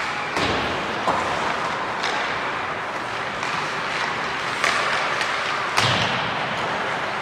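Ice hockey pucks and sticks striking the boards and ice during pre-game skating, a handful of sharp thuds and slaps over the steady noise of an ice arena.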